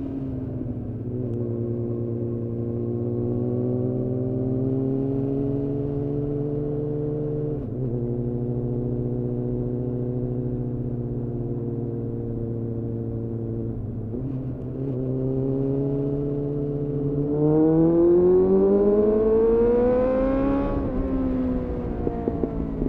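Suzuki GSF 600 Bandit's inline-four engine through a GPR Furore Nero aftermarket exhaust, heard onboard while riding. It pulls at fairly steady revs with a few brief dips, then revs up hard from about three quarters of the way in and drops off sharply about two seconds before the end.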